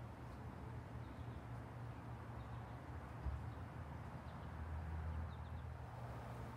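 Outdoor garden ambience: a steady low hum with a few faint, brief bird chirps.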